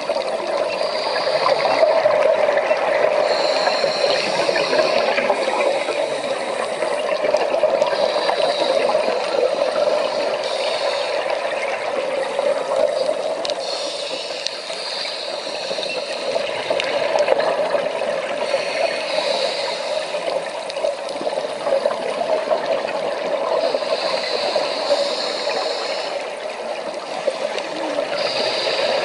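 Underwater ambient sound: a steady watery rush, with short higher hissing patches every few seconds.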